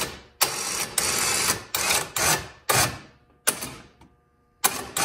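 ATV winch motor run in short taps, each burst starting sharply and dying away, reeling the line in until the hook sits against the rubber line stopper.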